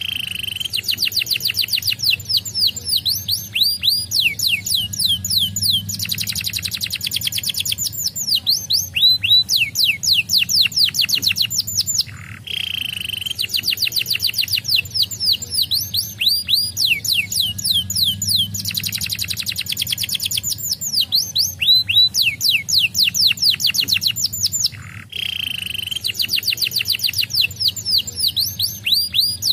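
Domestic canary singing: long, fast trills of rapidly repeated high falling notes that change from one run of notes to the next, broken by brief pauses about every twelve seconds, the song sequence recurring after each pause.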